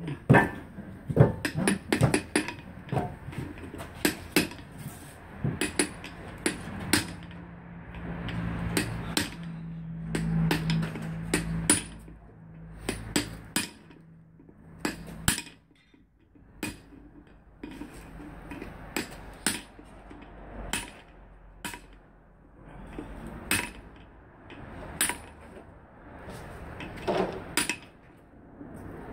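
Hammer blows on a steel chisel set against the wheel bearing in an Opel Corsa rear brake drum held in a vise, knocking the bearing out of the hub. The sharp metal strikes come in irregular clusters with short pauses between them.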